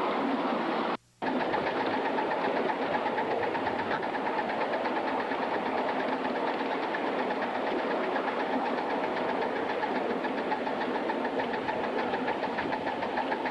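Atlantic-type live steam locomotive #988 running under steam: a steady hiss with a fast, even chuff or knock beating through it. The sound cuts out sharply for a moment about a second in.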